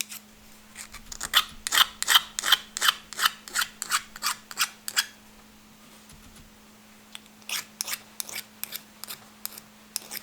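Hand file rasping along the cut edge of a copper spoon blank in quick, even back-and-forth strokes, about three a second. The strokes stop for a couple of seconds midway and then start again.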